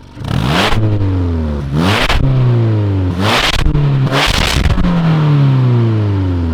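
2022 Subaru WRX's turbocharged flat-four revved in four quick blips, each rising sharply and then falling back slowly toward idle, through a Tomei titanium exhaust fitted with its silencer and centre silencer insert. The owner hears the engine struggling to rev with the insert's small outlet restricting flow.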